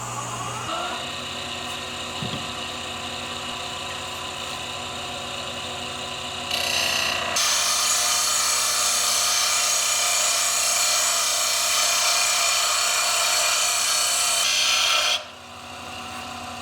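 Wood lathe running with a steady motor hum as it spins a birch handle blank. About six and a half seconds in, a tool or abrasive is pressed against the turning wood and gives a loud rasping scrape for about eight seconds. The scrape cuts off suddenly while the lathe keeps running.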